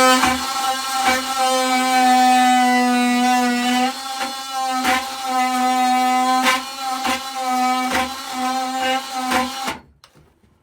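Power drill motor running at one steady pitch for about ten seconds, then stopping abruptly near the end, with irregular sharp knocks as the bit works. It is opening up a hole so a hinge screw will go in.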